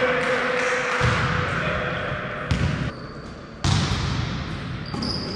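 Volleyball rally: three sharp ball strikes a second or so apart, each followed by a reverberant tail from the hall, with a short high squeak near the end.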